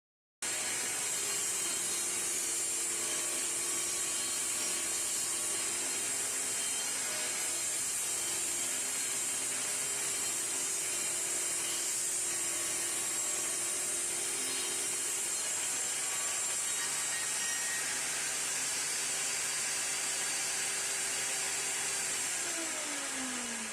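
Electric power tool running steadily at full speed, then winding down near the end as it is switched off.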